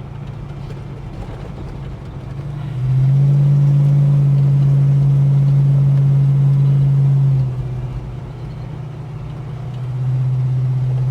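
Holden HK car on the move, heard from inside: a steady low drone of engine and road noise. It swells clearly louder at the same pitch for about four seconds from about three seconds in, and again near the end.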